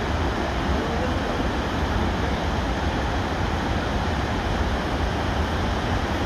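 Floodwater pouring through the open gates of a dam spillway and churning in the river below: a steady, unbroken rush with a heavy low rumble.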